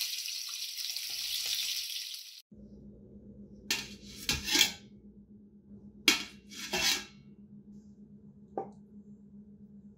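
Beef short ribs sizzling as they sear in oil in a stainless steel pan, cutting off suddenly about two and a half seconds in. Then metal tongs knock and clink against a stainless steel pot about six times as the browned ribs are set into it, over a faint low hum.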